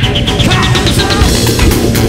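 Loud music with drums.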